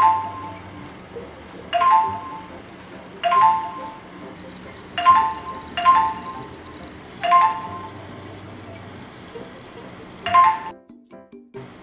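Smartphone notification chime dinging about seven times at uneven intervals over background music: repeated alarm pushes from a security camera app's motion detection.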